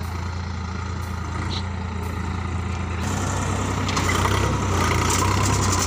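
Farm tractor's diesel engine running steadily as it pulls a seed drill through tilled soil, growing louder about three seconds in as it comes close.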